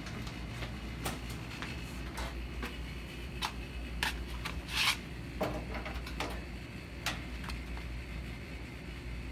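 Scattered light clicks, knocks and rustles of a person moving about on foot, louder about four to five seconds in, over a steady low hum.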